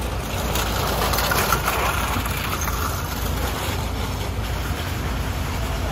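Steady low rumble of a passenger train, with a louder rushing noise that swells and fades over the first three seconds.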